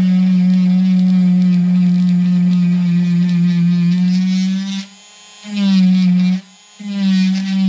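Cordless rotary tool whining at a steady high speed as it carves bark off a juniper bonsai trunk to make a shari. It cuts out about five seconds in, runs again for about a second, stops briefly, then starts up again near the end.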